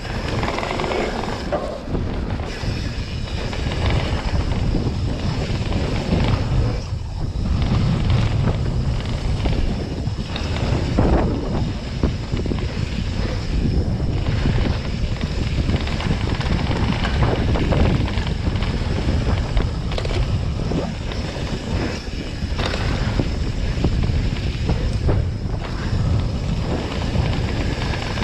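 Mountain bike riding fast over a dry dirt trail: tyres rumbling on the dirt, with steady wind buffeting the camera microphone.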